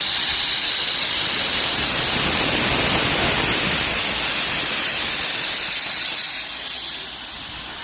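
Steam locomotive venting steam in a loud, steady hiss that eases off a little near the end.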